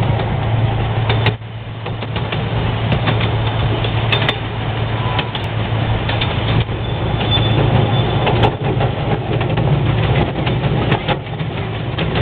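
Ride-on miniature railway train running, heard from one of its passenger cars: a steady low engine hum with scattered clicks and knocks as the cars roll along the track.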